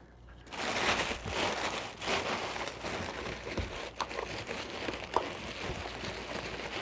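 Crinkled packing paper and crinkle-cut kraft paper shred rustling and crinkling as hands dig through a cardboard box, starting about half a second in, with a couple of small clicks.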